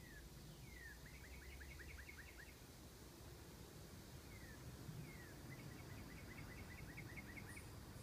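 A songbird singing faintly, twice: each song is a downward-slurred note followed by a quick trill of about ten notes, the first about a second in and the second about five seconds in.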